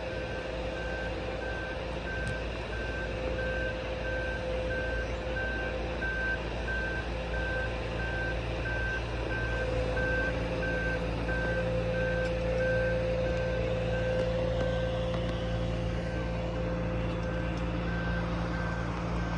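A backup alarm beeping steadily, a little more than once a second, over a running engine that grows louder about halfway through, typical of a boat yard's travel lift on the move.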